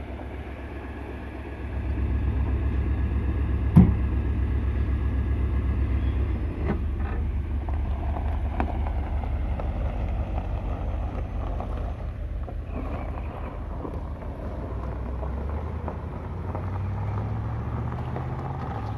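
1982 Mercedes-Benz 380 SL's V8 engine running steadily, with one sharp thump about four seconds in. Near the end the car pulls away and the engine note steps up in pitch as it accelerates.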